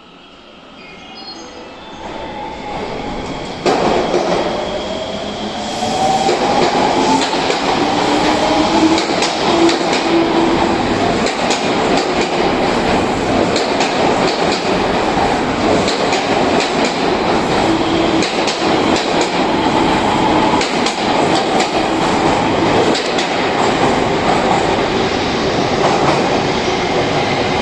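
Odakyu 2000 series electric commuter train pulling out. Its motors give a whine that rises in pitch as it gathers speed over the first few seconds, then the cars go by with a steady loud rumble and a clatter of wheels.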